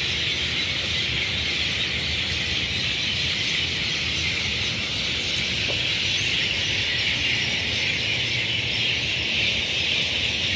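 A large flock of birds in the trees, massed in a dense, unbroken chorus of high chirping and chattering. The speaker puts the noise down to their migration season.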